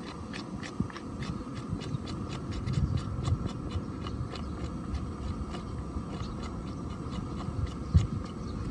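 Short, quick scraping strokes on the hide and hair of a cow's head, coming unevenly two to four times a second, over a low rumble of wind on the microphone. One louder thump comes near the end.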